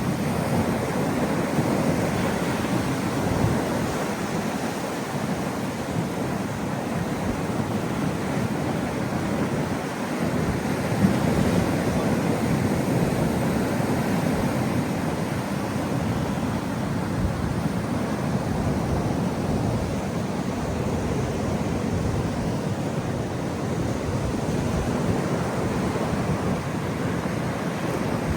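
Large ocean waves crashing on a rocky shore: a steady, unbroken surf noise.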